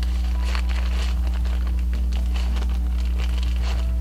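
A plastic bag of brown sugar crinkling and rustling in irregular bursts as hands scoop the sugar and pack it into a measuring cup, over a steady low electrical hum.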